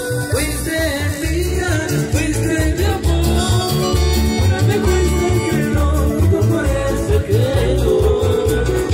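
Loud, amplified live Latin dance music from a band, with a steady bass beat under a wavering melody line.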